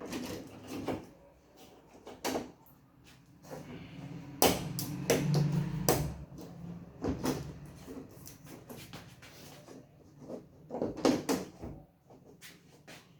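Scattered clicks and knocks of TV parts being handled and fitted together during reassembly, with a louder stretch of knocking and a low hum about four to six seconds in.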